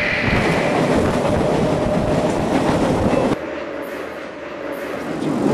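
Electric commuter train running on the rails, a dense rumble and clatter of wheels on track. About three seconds in the sound cuts to a quieter station platform, where an approaching train grows louder near the end.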